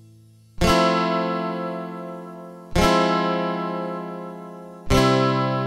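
Background music: slow acoustic guitar chords, three strums about two seconds apart, each left to ring out and fade.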